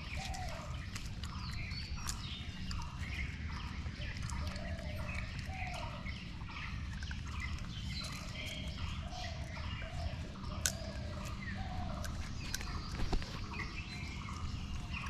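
Several birds calling and chirping over one another: a short falling note repeated about once a second, with higher chirps above it, over a steady low rumble. Two sharp clicks stand out in the second half.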